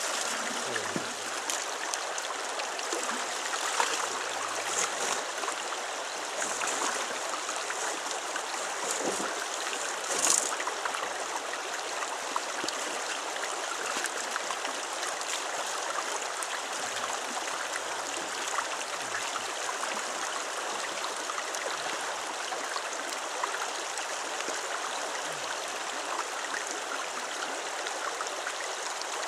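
Shallow rocky river flowing steadily over riffles, with a few brief sharp sounds, the loudest about ten seconds in.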